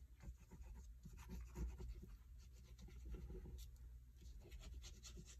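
Faint scratching of a glue bottle's fine precision tip drawn across textured cardstock as wet glue is laid on, in many small irregular strokes.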